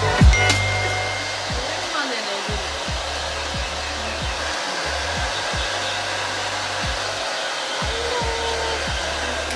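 Hand-held hair dryer running steadily: a constant, even rushing hiss of blown air.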